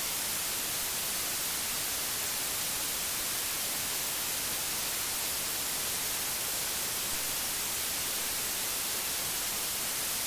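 Steady, unbroken static hiss, strongest in the treble: the noise bed of a simulated emergency alert broadcast, heard with no voice over it between announcements.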